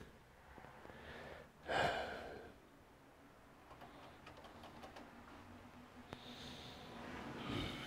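A person breathing out audibly about two seconds in and again near the end, with faint small handling noises from a gloved hand working inside a desktop computer case in between.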